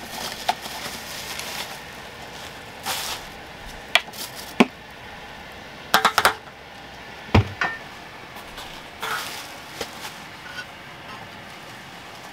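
Camp cooking gear and food being handled: scattered clicks and knocks, a quick cluster of clicks about six seconds in, a dull thump soon after, and brief rustling.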